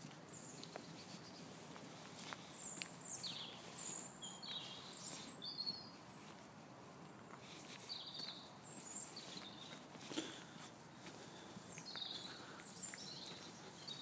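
Small birds calling in the trees, short high chirps in three loose bursts, over the faint footsteps of someone walking on a tarmac path.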